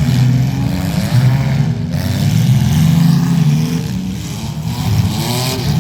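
Several demolition derby cars' engines running and revving together, their pitches repeatedly rising and falling.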